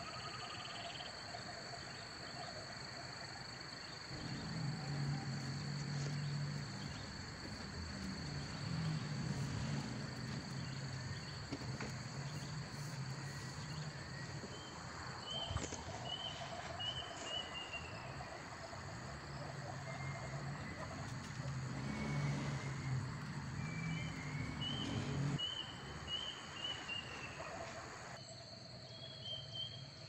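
Insect and frog chorus: a steady high-pitched insect trill, runs of short falling chirps, and a low hum that swells and fades every few seconds.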